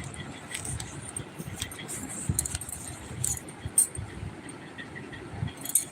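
A few sharp, scattered clinks and clicks over a low, steady rumble, the loudest about two thirds of the way in and again near the end.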